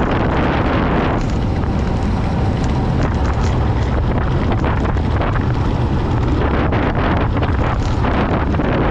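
Wind rushing hard over the camera's microphone as a road bicycle descends a mountain pass at speed, a loud, steady roar with heavy low rumble.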